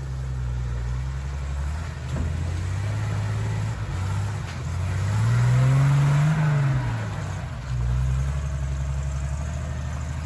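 Lifted 60-series Toyota Land Cruiser's engine pulling the truck through a muddy water hole. The engine revs up about halfway through, then drops back as the truck climbs out.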